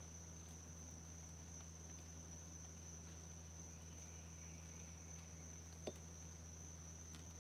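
Faint, steady high-pitched insect chorus over a low steady hum, with one sharp click near the end.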